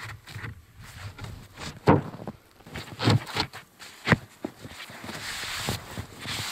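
A plywood sheet being lowered and set down onto a wooden frame: three dull wooden knocks about a second apart, then a stretch of scraping and rubbing of hands and knees against the board and snow near the end.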